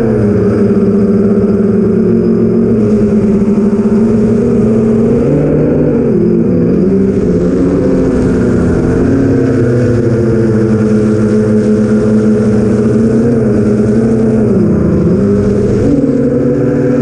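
Four brushless motors of an 8-inch FPV quadcopter (BrotherHobby Avenger 2812 1115kv) spinning 8045 propellers, heard from the drone itself as a loud, steady buzzing hum whose pitch rises and falls with the throttle. The pitch dips and wavers about six seconds in, and drops again near fifteen seconds before climbing back.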